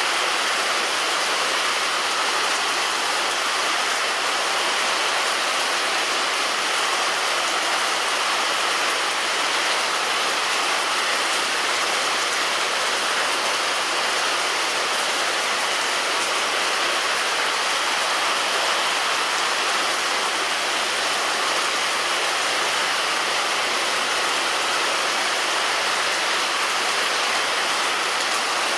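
Heavy rain falling on a roof, a steady, even hiss of water that holds the same level throughout.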